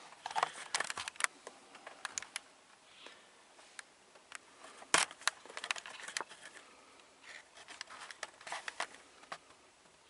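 Handling noise inside a car cabin: irregular small clicks, rustles and knocks as someone moves about the rear seats with the camera, the loudest knock about five seconds in.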